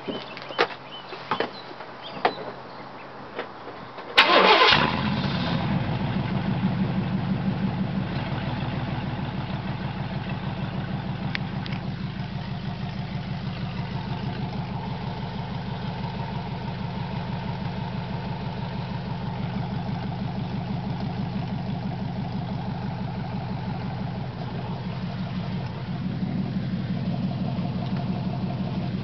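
1997 Chevy Silverado's 350 small-block V8 starting about four seconds in with a loud burst as it catches, then settling into a steady idle with an even exhaust pulse. The exhaust is open, cut right at the catalytic converters behind full-length tube headers. A few sharp clicks come before the start.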